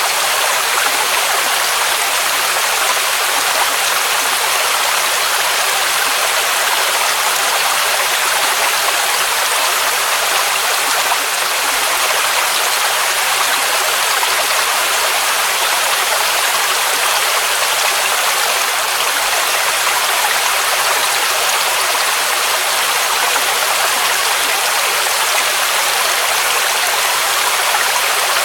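Waterfall rushing water: a steady, even hiss of falling water, with most of its sound in the mid and high range and little low rumble.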